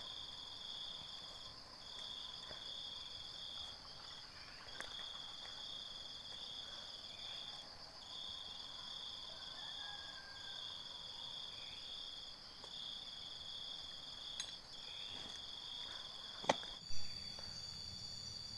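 Steady chorus of insects: one trills in long pulses of about a second with short breaks, over a steadier, higher drone from others. A sharp click and a knock near the end.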